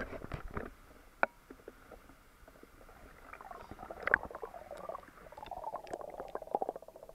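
Water splashing and sloshing against an action camera in its waterproof housing as a swimmer moves through a pool, with sharp clicks at the start. Near the end, after the camera goes under, comes a dense run of quick underwater clicking and bubbling.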